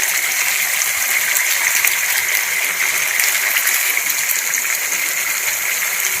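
Whole tandoori-marinated chicken sizzling steadily in an open pan, a dense crackling hiss as each side browns.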